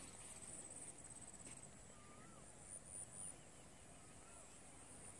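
Near silence: faint rural outdoor ambience, with two faint short whistled calls, one about two seconds in and one about four and a half seconds in.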